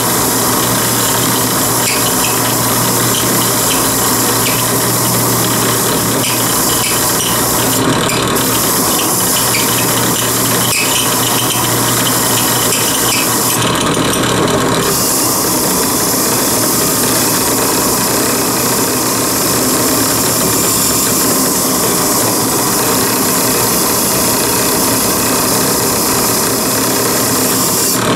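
A steel knife blade pressed against a spinning wire wheel on a belt-driven, motor-powered arbor. It makes a steady, harsh brushing noise over a low, even motor hum as the wire wheel scrubs scale off the freshly hardened file knife so the temper colours will show.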